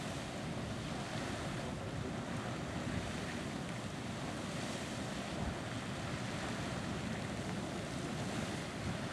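Erupting geyser jetting steam and water with a steady rushing hiss, mixed with wind noise on the microphone.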